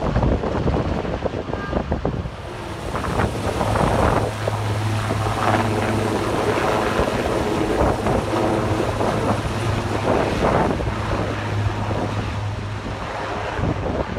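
Super Puma twin-turbine helicopter flying close overhead with an underslung load. Its steady rotor and engine sound grows louder a few seconds in as it passes near, then eases off toward the end.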